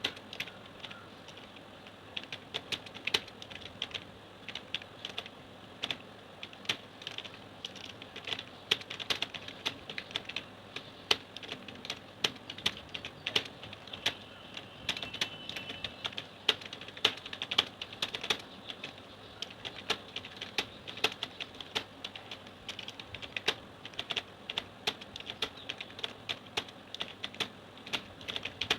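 Computer keyboard keys being struck in quick, uneven succession: continuous touch typing at a steady working pace during a timed typing-speed test.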